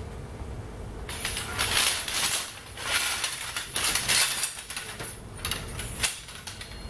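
Metal frame tubes of a TRAK folding kayak clinking and rattling against each other as the bow frame sections are lifted and shaken out. Starts about a second in, with irregular sharp knocks throughout.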